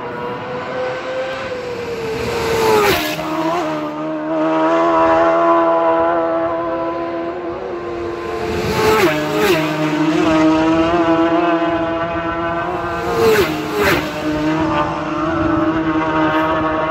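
Road-racing motorcycles passing at high speed, three times about five seconds apart. Each engine note drops sharply in pitch as the bike goes by, and high-revving engine sound carries on between passes.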